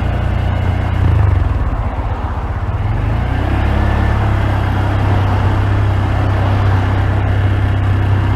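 Honda Grom's 125 cc single-cylinder engine running, picked up by a phone in a pocket: a brief surge about a second in, a dip in the engine note around two seconds, then the note rises and holds steady.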